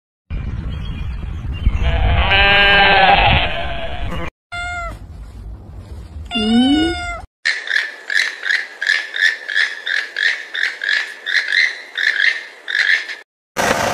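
A sheep bleats once over a low rumble, then a cat meows twice. After that comes a quick run of short high-pitched calls, two or three a second, lasting several seconds.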